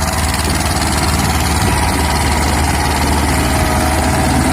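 Eicher 312 tractor's diesel engine running steadily at full power, labouring as it hauls an overloaded trolley up a slope.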